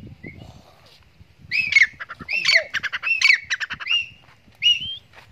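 A grey francolin calling loudly. Faint chirps come first, then from about a second and a half in a run of about five shrill, rising notes, each followed by a quick rattle, repeated at an even pace.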